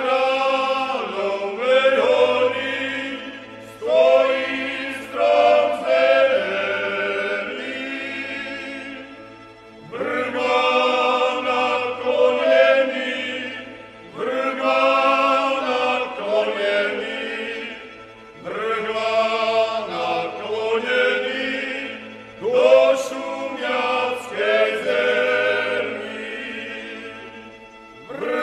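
Horehronie-style multipart folk singing by a small men's group with a lead singer, in long held phrases of about four to five seconds, separated by short pauses for breath.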